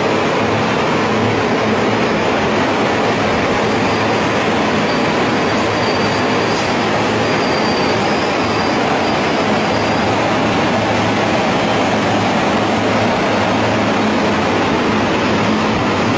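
Steady, loud running noise of a french fries production line: the large axial fans blowing air over the fries on the mesh conveyor, together with the line's machinery, with a low hum underneath.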